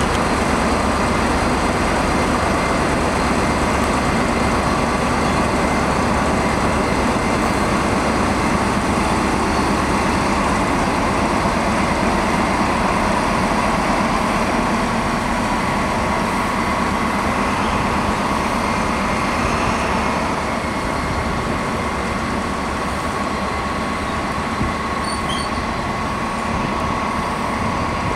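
Two BB 67400 diesel locomotives working in multiple, their engines running as they haul a train of coaches slowly past, with a steady whine over the deep rumble. About two-thirds of the way through the rumble eases as the coaches follow.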